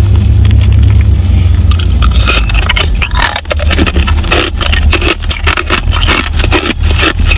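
Crushed ice scraping and crackling in a plastic tub as fingers dig through it, with the crackles getting denser and louder about two seconds in, over a steady low rumble.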